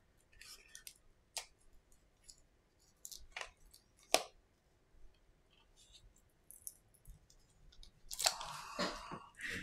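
Yellow plastic pry tool clicking and scraping against a Samsung Galaxy A10's frame and battery assembly: several separate sharp clicks, the loudest about four seconds in, then a denser run of scraping and handling noise near the end.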